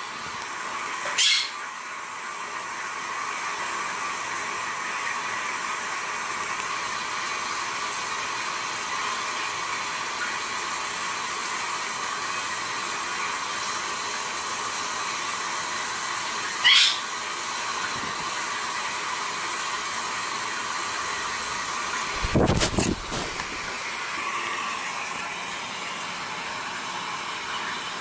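A blue Quaker parrot (monk parakeet) gives two short, high chirps, about a second in and again near 17 seconds, over a steady hiss of room noise. A low thud comes about 22 seconds in.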